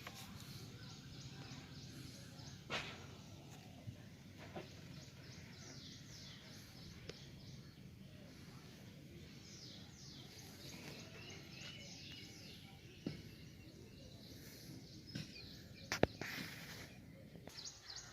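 Faint outdoor background noise with birds chirping in the middle stretch, and a few sharp clicks: one about three seconds in, one near four and a half seconds, and one near sixteen seconds.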